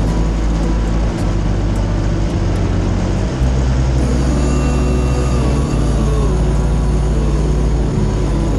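Aerolite 103 ultralight's engine and propeller running while taxiing, the engine note stepping up and down in pitch several times with the throttle.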